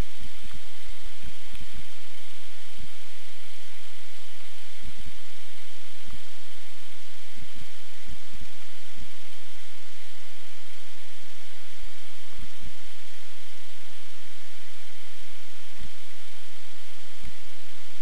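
Steady loud hiss from a small camera's microphone, with irregular short low thumps of wind buffeting it.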